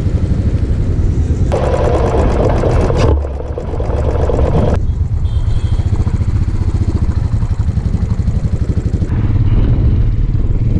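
Motorcycle engine running with a steady low pulsing beat. About one and a half seconds in, a louder rushing noise rises over it for about a second and a half.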